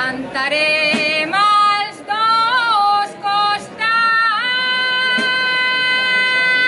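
A woman singing an albà, the traditional Valencian improvised serenade song, solo in a high voice. Her ornamented, wavering phrases end on a long held note.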